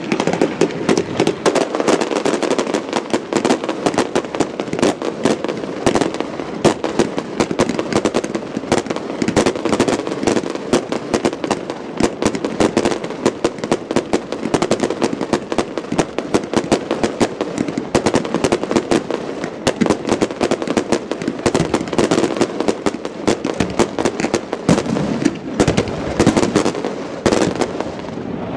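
Aerial fireworks display: a dense, unbroken barrage of bangs and crackles, several reports a second, from bursting shells and crackling stars.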